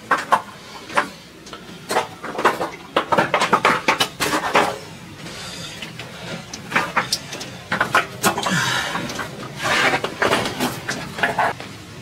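Footsteps crunching and knocking on packed snow and ice, an irregular run of sharp clicks and crunches that pauses briefly in the middle.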